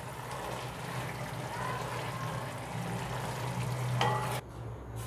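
Mustard gravy sizzling in a hot kadai on residual heat, the gas just switched off, as a spatula stirs and scrapes through it; the sizzle stops about four seconds in.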